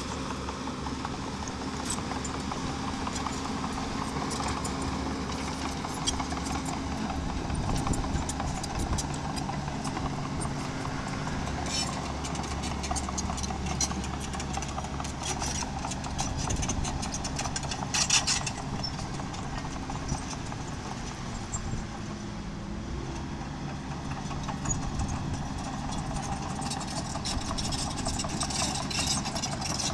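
Miniature crawler bulldozer's diesel engine running steadily under a continuous rapid clatter of tracks and stone as it pushes and spreads rock. There is a louder burst of clanking about eighteen seconds in, and the engine note drops a little a few seconds later.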